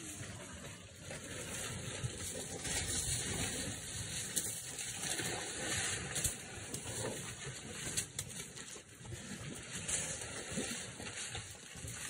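Young African elephants moving about in a mud wallow close by: wet mud splashing and squelching with scattered soft thuds and rustles.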